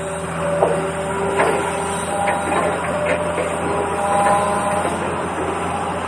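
Toy excavator's small electric motor whirring steadily. The pitch steps between a few levels as it works, with light clicks and scrapes of sand and pebbles.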